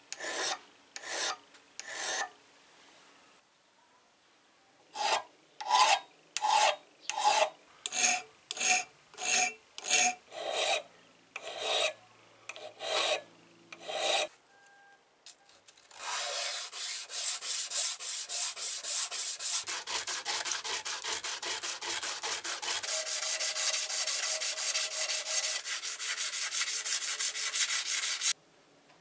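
Hand file rasping on the metal of a jeweler's saw frame in steady separate strokes, about one and a half a second, with short pauses. About halfway in, a long run of much faster, shorter rubbing strokes follows and stops abruptly near the end.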